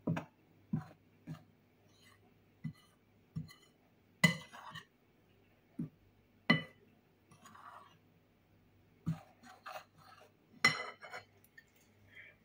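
Metal spoon clinking against a glass mixing bowl while stirring dry flour and spices, in irregular sharp taps with a brief ring and some softer scraping. The loudest strikes come about four, six and a half, and ten and a half seconds in.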